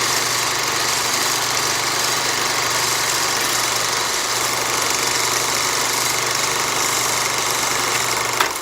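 Projector running with a steady mechanical whir over a low, constant hum. The level sags slightly near the end.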